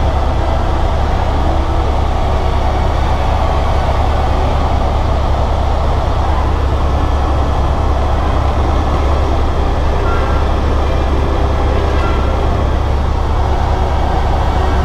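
Helicopter in flight heard from inside its cabin: the engine and rotor make a loud, steady low drone with a rushing noise over it.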